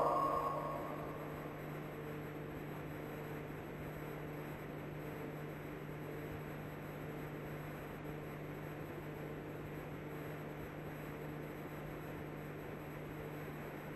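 The last held note of a chanted Quran verse dies away with echo in the first second. Then a steady low hum with an even hiss, the background noise of the mosque's sound system and the old recording.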